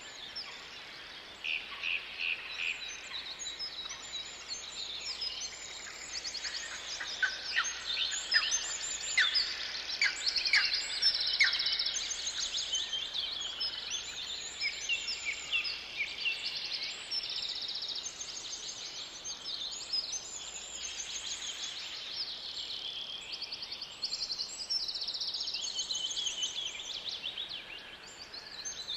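Several songbirds singing and calling at once, with dense chirps and trills, over a faint steady hiss. In the first half there is a run of quick falling whistles.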